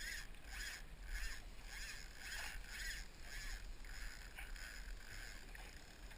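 Water splashing against a small fishing boat's hull: a run of soft swishes about two a second over a low steady rumble.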